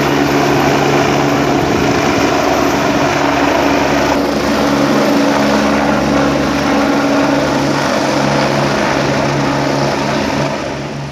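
Helicopter engine and rotor running at a steady, loud pitch, spun up ready for take-off, easing off near the end.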